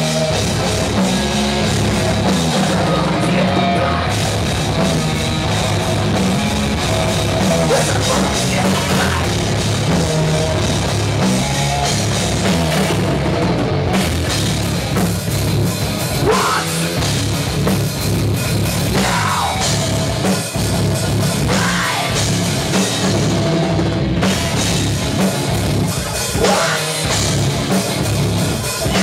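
Heavy metal band playing live: electric guitar, bass guitar and drum kit, loud and continuous.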